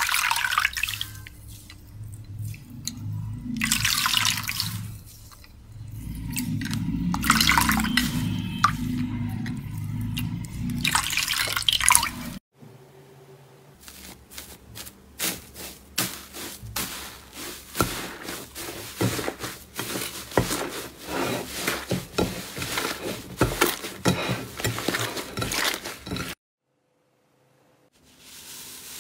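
Water squelching and splashing in several pulses as a nano sponge is squeezed under water; then a slime covered in crinkled foil is pressed, giving a long run of crackling foil crinkles.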